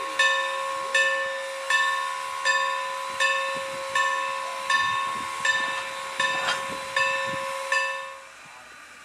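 Steam locomotive's bell ringing steadily, about eleven strokes at roughly one every three-quarters of a second, each ringing on into the next. It stops near the end.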